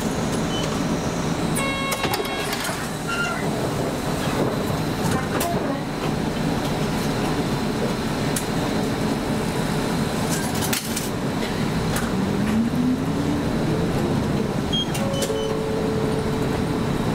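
Route bus engine running with road noise, heard inside the cabin. A short electronic beep sounds about two seconds in, and the engine note rises briefly about two-thirds of the way through as the bus accelerates.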